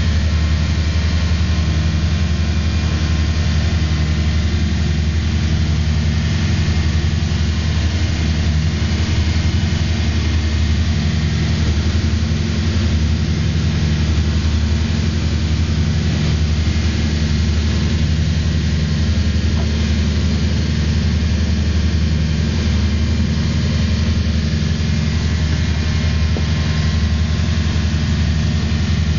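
Motorboat engine running steadily under way: a loud, even, low drone with a constant hiss above it.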